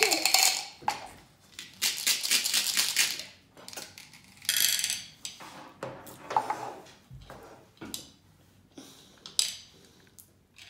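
M&M candies rattling in a plastic cup as it is shaken in several short spells, then clattering out onto a small plate, followed by light clicks of candies being moved on the plate.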